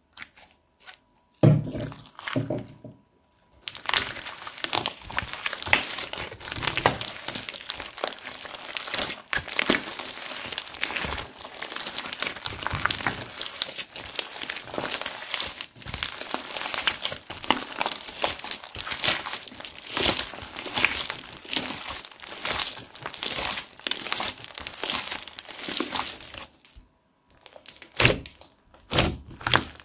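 Hands squishing, pressing and stretching a large batch of slime studded with tiny beads, making dense, fast crackling and sticky popping. A short burst comes about a second and a half in, then near-continuous crackling from about four seconds, with a brief pause near the end before it resumes.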